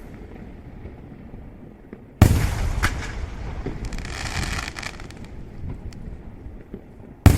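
Fireworks going off: a sudden loud bang about two seconds in, rolling away in a rumbling echo with a hissing crackle after it, then another sharp bang near the end.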